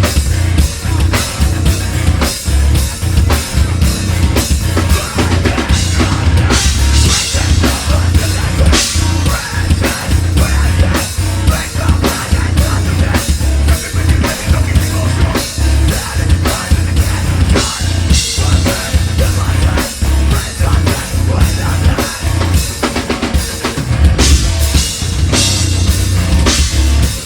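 Metal band playing live, loud, with drums to the fore: fast, dense drum-kit hits and a heavy low end, and crashing cymbals at several points.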